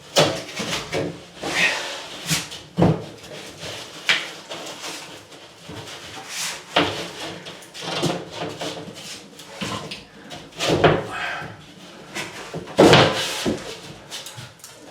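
Cement backer board being handled and set into place against the wall: irregular knocks, thumps and scraping, with the loudest knocks about seven and thirteen seconds in.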